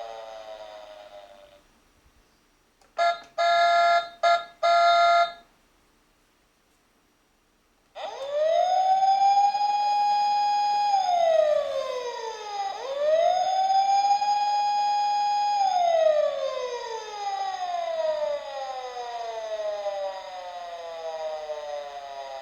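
Toy police car's electronic siren. A wail falls away at the start, then comes a burst of about four short beeps on one steady pitch. After a pause the wail winds up, holds, dips and rises again, holds, and slowly winds down.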